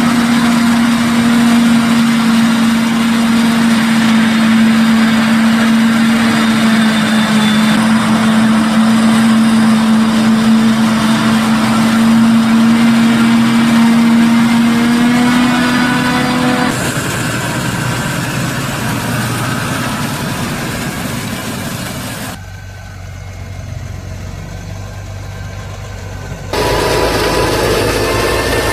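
Claas Jaguar 870 self-propelled forage harvester working under load, chopping maize, with a loud steady hum that rises slightly just before it stops about 17 seconds in. Quieter machine noise follows, then near the end a Fendt Vario 930 tractor runs as it levels chopped maize on the silage clamp.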